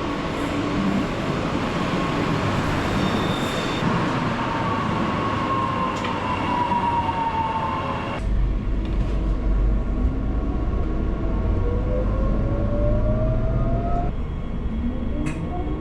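Electric suburban train heard from inside, rumbling along with a whine from its traction equipment: a tone falls in pitch until the sound changes suddenly about eight seconds in, then tones rise in pitch over the next several seconds and again near the end. It is an unusual sound for this train, which the rider likens to an X'Trapolis.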